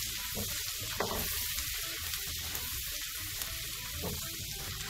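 Chopped garlic, pepper flakes and herbs sizzling steadily in butter and oil in a frying pan over low heat, stirred with a plastic slotted spatula.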